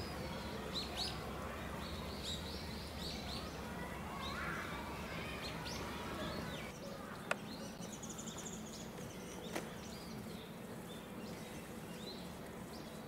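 Outdoor ambience with small birds chirping in short rising and falling calls over a steady low background hum. There are two sharp clicks in the second half.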